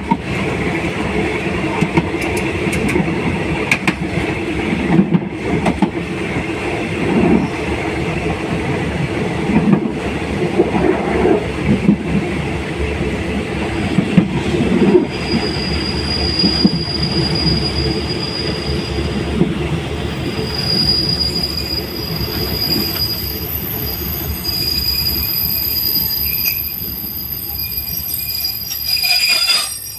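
Train running along the rails, heard from on board: a steady rumble of wheels with scattered knocks over rail joints and points. From about halfway a steady high-pitched wheel squeal joins in.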